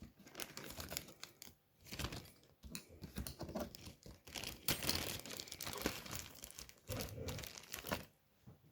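Packaging crinkling and rustling as a craft kit's contents are handled and unpacked by hand, in irregular crackles with a couple of brief pauses.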